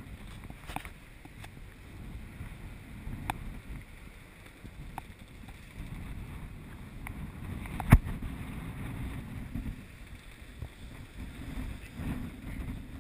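Sailing yacht under way at sea: wind buffeting the camera microphone over water rushing along the hull, with a few faint clicks and one sharp knock about eight seconds in, the loudest sound.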